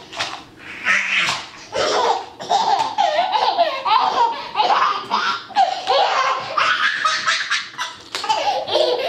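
A toddler laughing hard: a long run of short, high-pitched bursts of laughter with hardly a pause.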